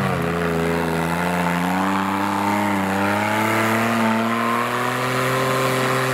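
Off-road 4x4's engine running steadily at raised revs, its pitch rising a little over the first couple of seconds and then holding.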